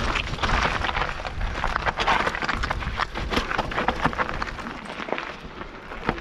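Mountain bike tyres rolling over loose rock and gravel on a rocky descent, with a constant crunch and rattle and many sharp clicks of stones and bike parts. It eases off a little near the end.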